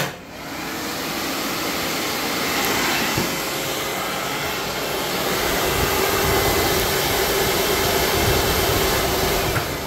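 A click as the battery disconnect switch is turned on, then a 12-volt 80-watt 7-inch electric radiator fan spins up and runs with a steady rush of air and a faint motor hum. Another click comes just before the end, and the fan starts to wind down.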